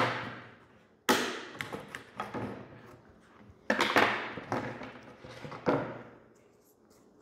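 About five sharp knocks and clatters of rigid plastic garage floor tiles being handled and set down after a jigsaw cut, each one dying away within a second.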